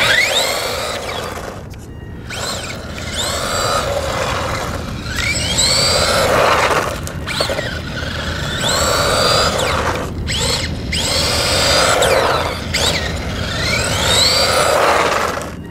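Electric motor of an HPI Mini Recon RC monster truck whining up in pitch each time it accelerates, several times over, with short breaks between shots, over background music.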